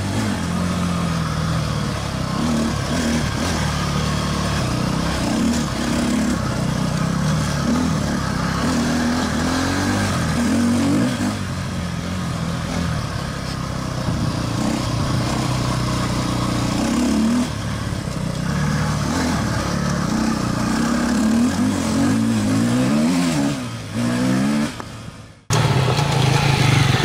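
KTM enduro motorcycle engine being ridden on a dirt trail, its revs rising and falling again and again through gear changes and throttle. About a second and a half before the end the sound cuts off suddenly and gives way to another motorcycle engine running steadily.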